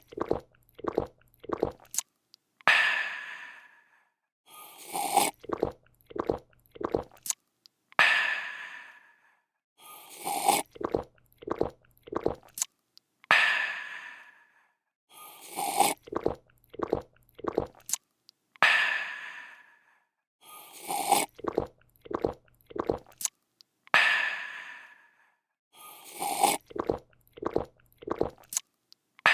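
Looped drinking sound effect: a slurp, a few quick gulps, then a refreshed breathy "aah", repeating about every two and a half seconds, around eleven times.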